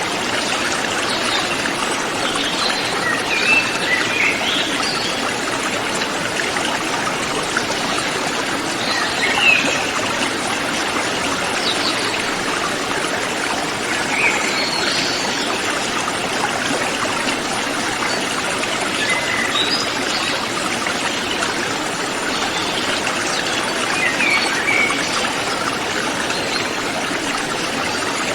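A river flowing steadily, with brief high chirps of forest birds now and then over the rush of water.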